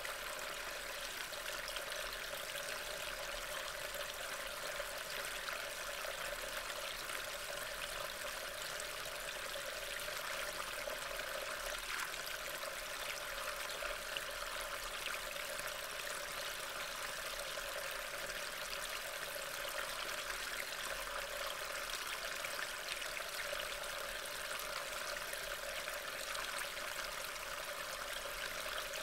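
Steady, even rush of rain from a thunderstorm, with no single sound standing out.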